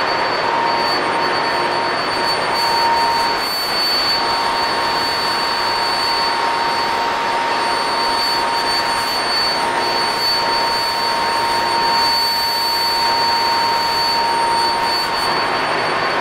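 Steady, loud roar of a container ship's engine-room machinery, with two steady whining tones over it.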